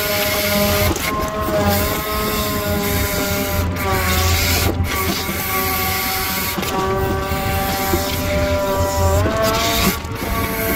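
Diesel engine and hydraulic pump of a 5-ton grapple-crane truck running under load as the crane boom and grapple work, a steady whining drone whose pitch steps up and down a couple of times as the crane moves.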